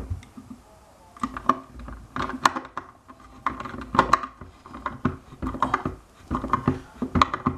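Phillips screwdriver driving the threaded screws that hold a hoverboard logic board's heat-sink plate to its metal frame, with irregular metallic clicks and clinks.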